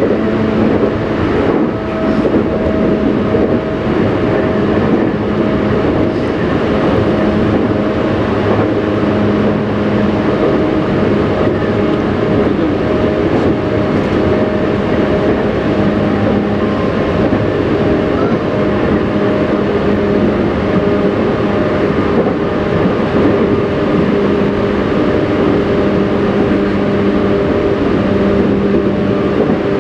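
Tobu Railway electric train running steadily along the line, heard from inside the front car: a continuous rumble of wheels on rail with a steady hum from the motors.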